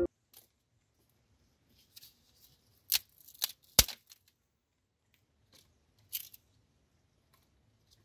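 Dry firewood sticks on a smouldering three-stone hearth giving a few sharp, scattered wooden clicks and snaps, the loudest around three to four seconds in and another about six seconds in.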